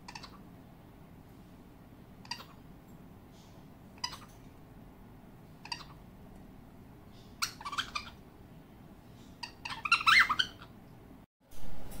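Cockatiels calling: single short chirps every couple of seconds, then two runs of louder, rapid chirps and squawks in the second half.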